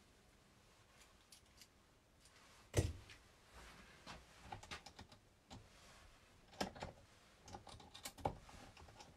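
Hands handling a small wrench and the metal suspension parts of a 1/10 RC car: scattered clicks and knocks, the loudest a sharp knock a little under three seconds in, with another clear knock near the end.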